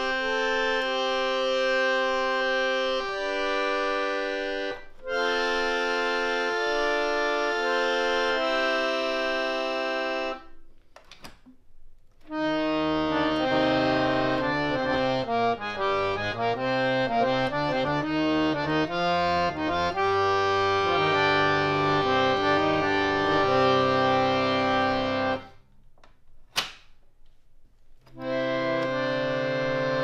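Sursargam three-reed harmonium, a hand-pumped reed organ, playing held chords for about ten seconds. After a short pause with a single click, it plays a quicker passage of notes that reaches lower in pitch, then pauses again with a click, and chords resume near the end.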